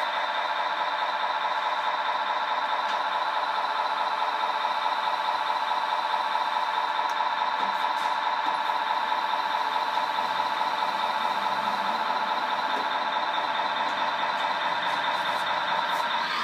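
Steady electric whine from the radio-controlled Bruder Scania 8x8 tipper truck's hydraulic system as its dump body is lowered.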